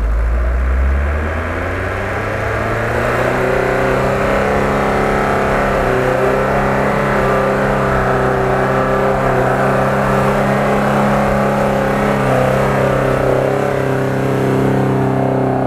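A vehicle engine at the start, giving way to background music with long, steady held notes that fade in over the first few seconds and carry on to the end.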